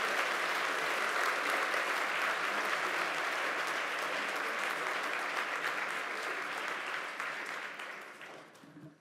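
A large seated audience applauding steadily, the clapping dying away near the end.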